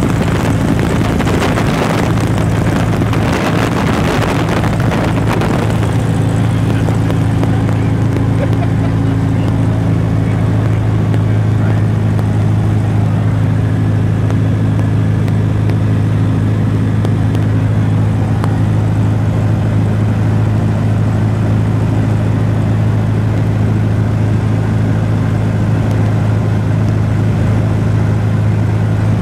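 A small propeller airplane's piston engine and propeller droning steadily at cruise, heard from inside the cabin. Wind rushes in through the open door and window, strongest in the first few seconds and easing off about six seconds in.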